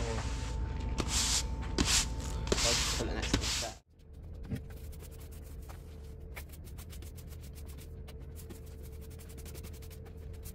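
Stiff-bristled push broom sweeping sand across block paving to fill the joints: a run of loud, scratchy strokes close by. After about four seconds it cuts abruptly to fainter, steady brushing with fine gritty ticks.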